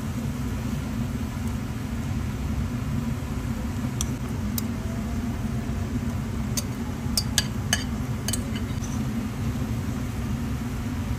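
Stir-frying in a frying pan on the stove, over a steady low mechanical rumble. Between about four and nine seconds in come a handful of sharp clinks and taps as a metal spoon scrapes chicken out of a bowl and a wooden spatula knocks against the pan.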